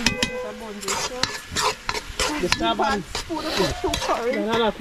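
Metal spoon scraping and knocking against a cast-iron karahi, stirring seasoned meat that sizzles in hot oil. A wavering pitched sound comes in behind it during the second half.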